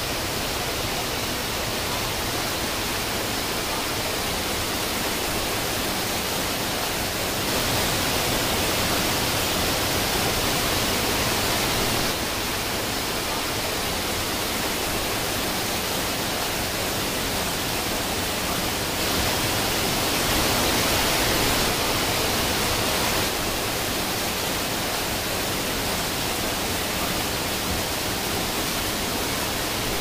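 Steady rush of water from a rocky mountain stream and small waterfall. It grows a little louder twice for a few seconds.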